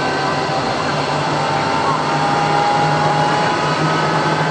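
Aircraft jet engines running steadily: a loud, even rush with a thin, slightly falling whine above it.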